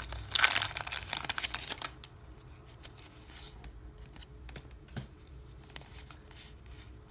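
Plastic booster pack wrapper of a Pokémon card pack crinkling as the cards are pulled out, for about two seconds, then quieter soft clicks and slides of the trading cards being handled.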